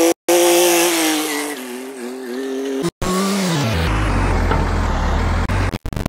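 Diesel engines of a Powertrac tractor and a JCB 3DX backhoe loader running, in short clips that cut off abruptly one after another. About three seconds in the engine pitch glides down, followed by a deep, low rumble.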